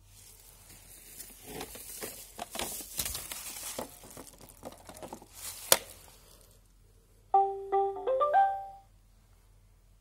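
A Roomba e5 robot vacuum is handled against its charging dock, with scraping, rustling and clicks and one sharp click shortly before six seconds. About seven seconds in, the robot plays its short rising electronic chime of several notes, the tone that signals it has docked and started charging.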